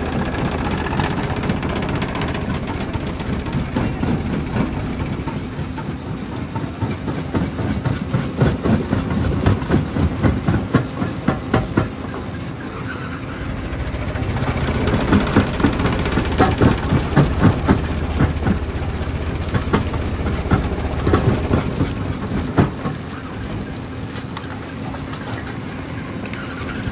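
Jaw crusher running with a steady mechanical hum, with stretches of rapid cracking and knocking as rock is crushed between the jaws, heaviest about a third of the way in and again just past the middle.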